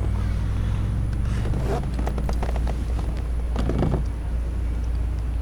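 A motor running steadily with a low hum, with scattered knocks and clatter about a second in and again near four seconds in.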